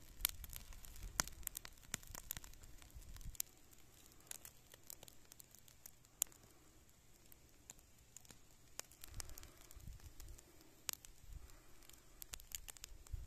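Heap of dry weeds and grass burning, crackling faintly with irregular sharp pops.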